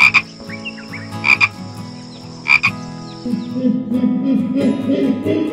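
A frog croaking three times, about a second and a quarter apart, each call a quick double note. From about three seconds in, a lower, rougher sound takes over.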